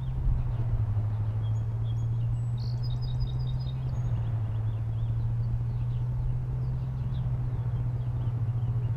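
An engine idling steadily with a low hum. Birds chirp above it, with a short trill about three seconds in.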